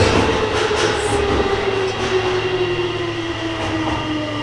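Tokyo Metro 16000-series (2nd batch) train's Toshiba IGBT inverter and permanent-magnet synchronous motors whining in a steadily falling pitch as the train brakes from about 35 to 25 km/h. Steady wheel and running rumble lies underneath.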